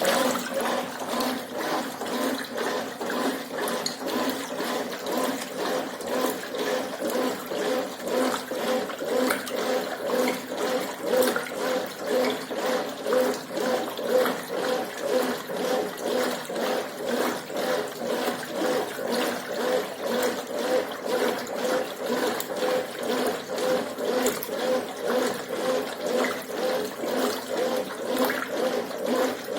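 Brastemp Ative 11 kg top-loading washing machine agitating with its dual-action agitator: a steady motor hum with water sloshing, pulsing in an even rhythm of about one and a half strokes a second.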